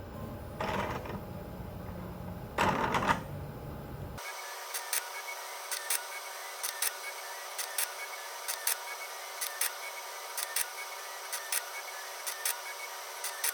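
Desktop robotic forming rig (robot arm and arbor press) at work: two brief scraping bursts, then, after an abrupt change in the sound about four seconds in, sharp mechanical clicks about once a second over a faint steady hum.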